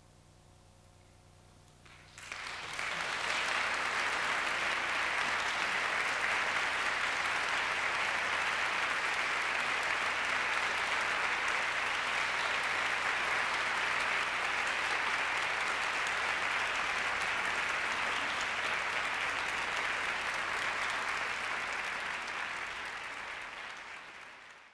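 Concert audience applauding. After a quiet pause of about two seconds it breaks out suddenly into dense, steady clapping, which fades out near the end.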